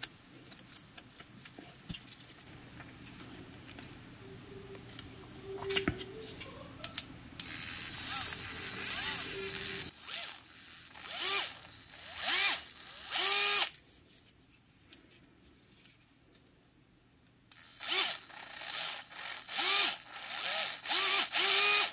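Brushed DC motor and gearbox of a DeWalt 8V gyroscopic screwdriver running with the housing off, in a series of short spins whose pitch rises and falls as the servo-style motion control speeds it up and slows it down. There are several spins about a third of the way in, a pause of a few seconds, then a quicker string of spins near the end.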